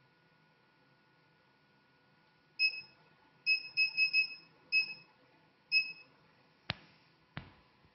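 Short electronic beeps from the cavitation–RF–vacuum slimming machine, seven of them in an irregular run from a few seconds in, over a faint steady thin tone. Two sharp clicks follow near the end.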